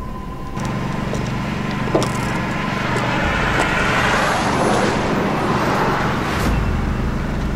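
Motor vehicle engine running steadily, under a rushing noise that swells to its loudest about four seconds in and then eases, with a single knock about two seconds in.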